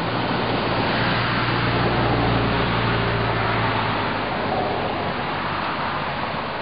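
A pickup truck driving past. Its engine hum and tyre noise swell to a peak about two seconds in, then fade away.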